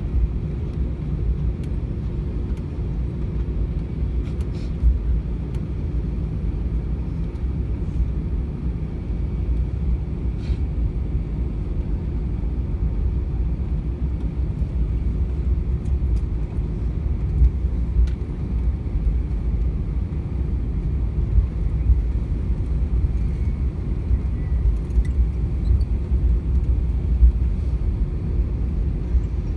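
Cabin noise inside an Airbus A320 taxiing on the ground: a steady low rumble from the idling engines and the rolling airframe.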